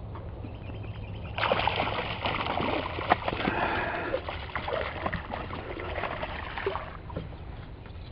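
Water splashing and churning as a hooked speckled trout thrashes at the surface beside the boat and is scooped into a landing net. The splashing starts about a second and a half in and lasts about five seconds.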